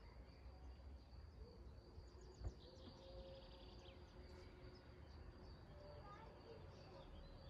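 Near silence while a church congregation prays silently: room tone with a few faint high chirps and one soft knock about two and a half seconds in.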